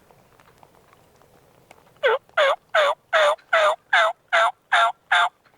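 A series of nine loud turkey yelps, about three a second, each note breaking downward in pitch.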